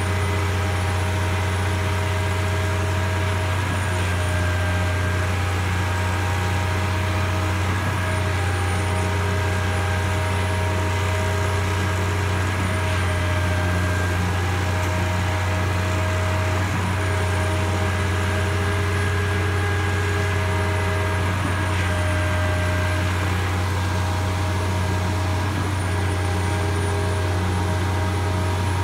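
Putzmeister 38-metre Z-boom concrete pump truck running steadily while pumping concrete, its tone changing about every four seconds.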